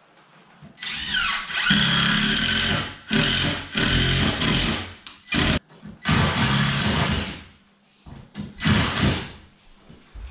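Power driver running in several separate runs of a second or two each, driving screws through a 2x4 shoring post into the ceiling joists.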